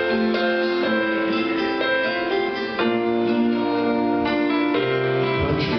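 Country band playing the instrumental intro of a song, keyboard to the fore over a bass line.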